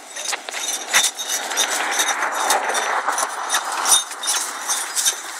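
Pony in harness pulling a two-wheeled cart close past, with hoofbeats, clinking harness fittings and the cart rattling as it rolls over dry grass; it is loudest at about one second and again at about four seconds as it goes by.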